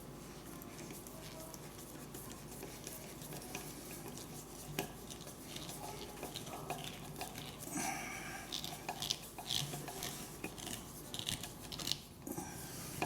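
Small metal items clinking and rattling as they are handled: screws and hand tools being picked through. The clinks come thick and irregular in the second half.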